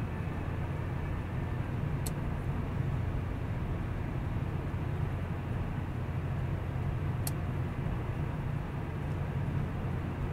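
Mazda 6 driving along a wet road, heard from inside the cabin: a steady rumble of engine and tyres with road hiss. Two brief faint ticks come about two and seven seconds in.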